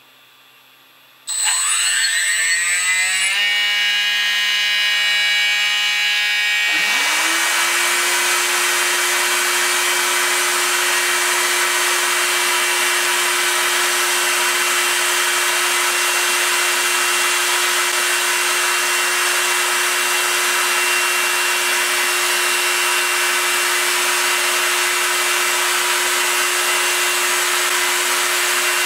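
Proxxon MF 70 mini mill's spindle motor switched on about a second in, its whine rising as it spins up and then running steady. About seven seconds in a second motor starts, the dust-extraction vacuum at the cutter, adding a loud, even rushing noise over a steady hum.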